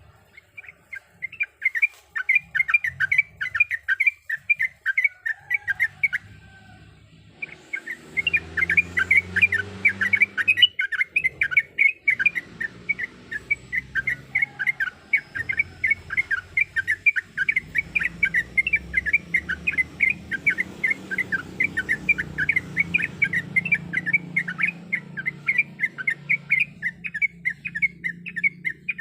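Yellow-vented bulbul (trucukan) singing a fast, continuous chatter of short bubbly notes. It breaks off about six seconds in and resumes a second or so later.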